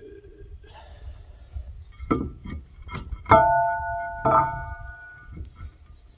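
Steel drive sprocket of a Takeuchi TL130 track loader being knocked on its final-drive hub. A few dull knocks about two seconds in are followed by two strikes, about three and four seconds in, that leave the sprocket ringing like a bell for about a second each.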